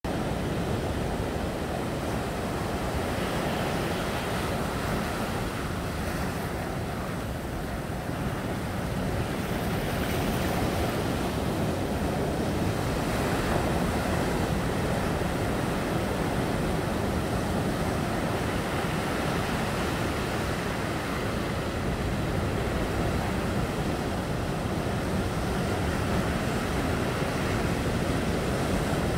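Ocean surf: waves breaking and washing up a sandy shore among rocks, a continuous rushing that swells a little about ten seconds in.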